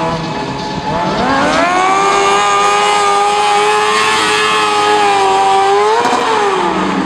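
Sport motorcycle engine revving up about a second in and held at high revs through a long wheelie, then the revs drop away near the end.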